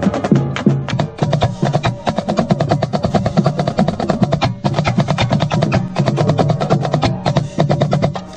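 High school marching percussion section playing a fast, dense passage of rapid drum strokes, with a couple of brief breaks in the rhythm.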